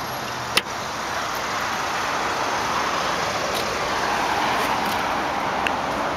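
The fuel filler door of a 1999 Nissan Sentra is pushed shut with a single sharp click about half a second in. A steady hiss of road traffic follows and swells a little over the next few seconds.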